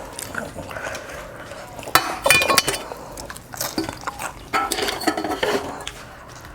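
Cutlery and dishes clinking and scraping in short clusters, about two seconds in and again around five seconds.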